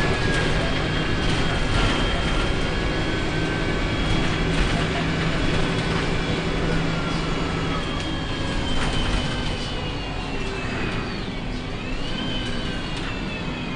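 MAN 18.220 bus with an Alexander Dennis ALX300 body, heard from inside the saloon while driving: the engine runs under a set of high whistles that slowly glide up and down in pitch. Near the end, one whistle dips and then rises again.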